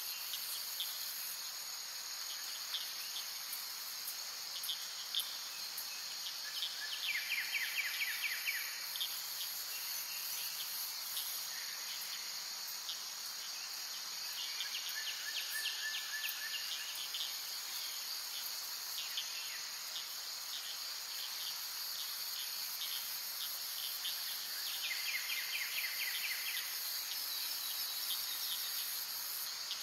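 Steady high-pitched chorus of insects, with short, rapid pulsing trills lower in pitch breaking in three times, about 7, 15 and 25 seconds in.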